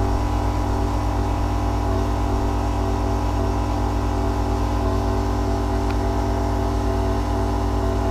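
Rainman watermaker's motor and high-pressure pump running steadily under pressure, pushing water through the reverse-osmosis membranes: a constant hum with several steady tones.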